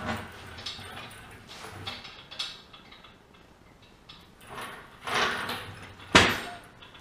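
Clatter and scraping of a steel engine hoist being rolled on its casters across a concrete garage floor with an engine hanging from it, in irregular bursts, with one sharp metal bang about six seconds in.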